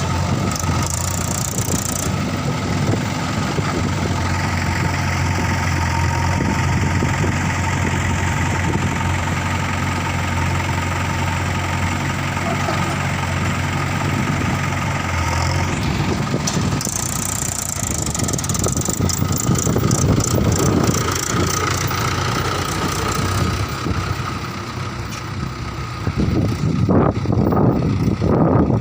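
JCB backhoe loader's diesel engine running steadily, then changing in load after about sixteen seconds, with louder surges near the end.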